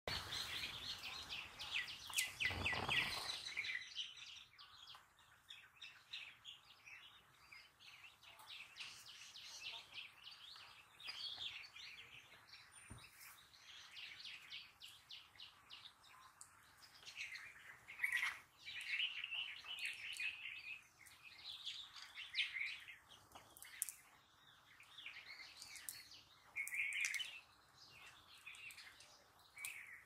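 Small birds chirping and calling on and off throughout, in short repeated notes. A brief low noise burst comes about two seconds in.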